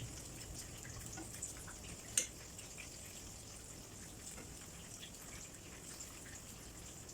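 Butterfly shrimp frying in hot oil, a faint sizzle with scattered small pops and one sharper crack about two seconds in.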